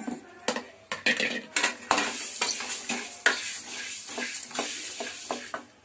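A spoon stirring and scraping chana dal, coriander seeds and dried red chillies as they roast in a pan, with repeated quick clinks and knocks against the pan over a sizzling hiss.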